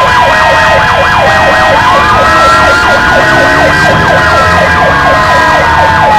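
Ambulance sirens sounding at once: a fast warbling yelp over a slower wail that falls, rises again about two seconds in, and falls once more.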